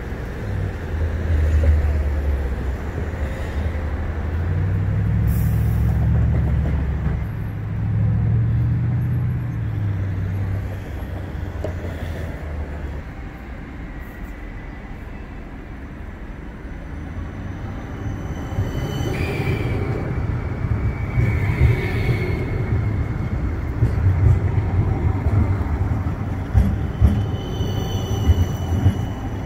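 CAF Urbos 100 tram running on its rails with a low rumble that eases off in the middle and builds again. About two-thirds of the way through, a high wheel squeal sounds for a few seconds, sliding slightly lower. Sharp clicks come near the end.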